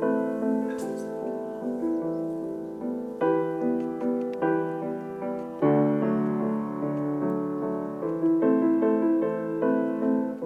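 Gentle solo piano music, notes struck and left to ring in a slow, calm melody.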